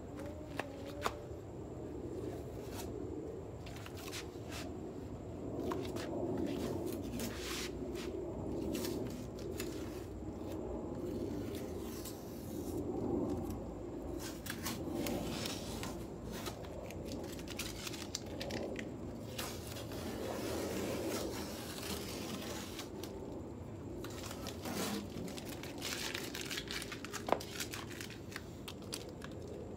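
Tape being pulled and torn and paper crinkling in the hands, with scattered small clicks and knocks, over a steady low hum.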